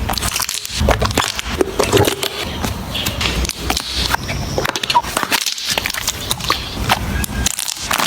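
Slime being squeezed and pressed, giving a dense, uneven run of crackles and pops.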